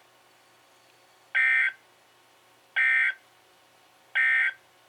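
Emergency Alert System end-of-message data bursts: three identical short, harsh digital screeches about 1.4 s apart, the coded EOM signal that closes an alert on NOAA Weather Radio.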